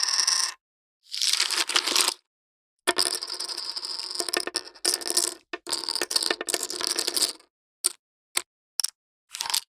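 Poker chips clicking and clattering together in several separate bursts, each lasting a second or two, then a few short single clicks near the end.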